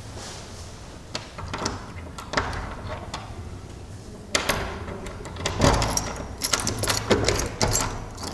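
Metal lever handle and lock of a wooden door rattled and clicked as it is worked by hand, in scattered clicks that become a busier, louder run about four seconds in.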